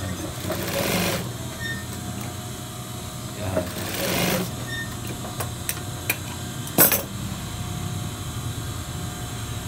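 Industrial sewing machine with its motor humming steadily, and two short runs of stitching about a second and four seconds in. A single sharp click, the loudest sound, comes just before seven seconds.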